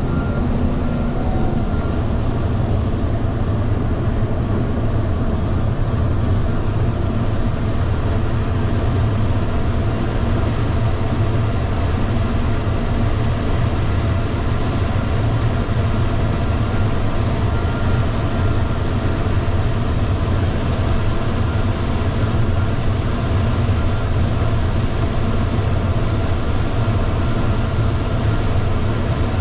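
Combine harvester running steadily while harvesting corn: a deep, unbroken machinery drone, with a little more hiss joining in about six seconds in.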